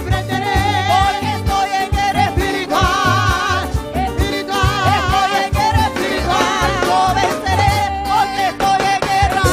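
Live church worship chorus: a lead singer and choir singing into microphones over an upbeat band with drums and bass. The sung notes waver with vibrato against a steady beat.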